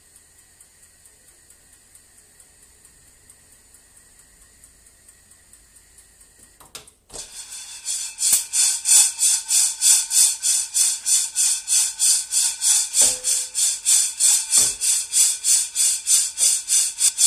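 Freshly roasted coffee beans rattling and sliding in a frying pan as it is shaken back and forth, about three swishes a second. The rattling starts after about seven seconds of near quiet.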